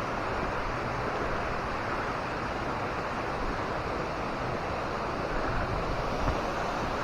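Steady rushing water, an even wash of noise that keeps up without a break.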